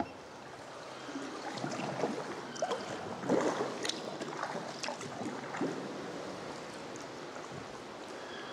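Sea kayak paddle strokes dipping and splashing in calm water inside a sea cave, with water lapping against the rock. There are several uneven splashes, the loudest about three and a half seconds in, then a softer steady wash.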